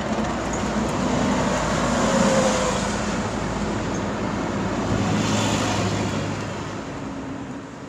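Steady rushing mechanical noise with a low hum underneath, fading out near the end.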